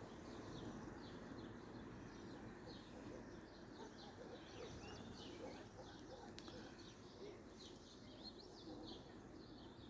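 Birds chirping faintly: many short, high chirps in quick succession over a low steady background noise.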